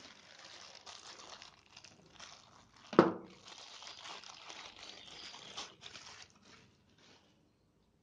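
Thin clear plastic bag crinkling and rustling as a hair clipper is pulled out of it, with one sharp crack of the plastic about three seconds in. The rustling stops about seven seconds in.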